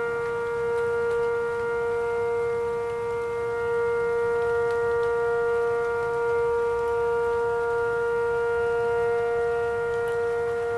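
Outdoor tornado warning siren sounding a steady alert tone, holding one unchanging pitch with a gentle slow swell in loudness.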